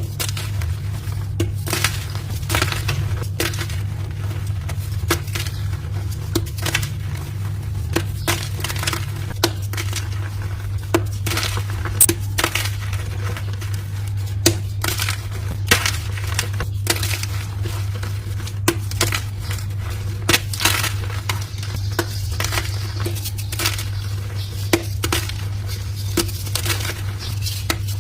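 Dyed gym chalk blocks being crushed, giving many irregular crunches and crumbles close to the microphone over a steady low hum.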